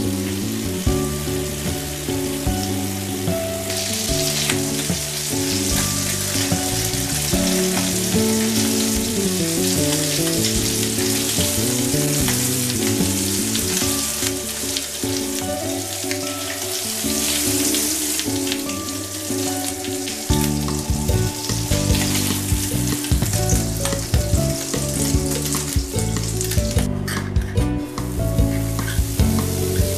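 Ground-beef patties sizzling in hot oil in a frying pan, a steady crackling hiss, with background music playing over it.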